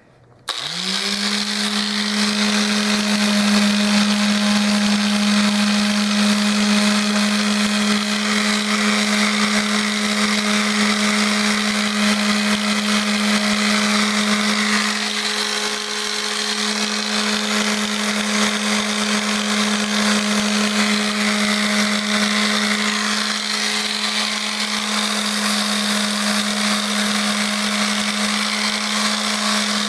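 Electric mouse (orbital detail) sander switched on about half a second in, rising quickly to speed and then running steadily with a strong hum and a hiss of sandpaper working a balsa wood body.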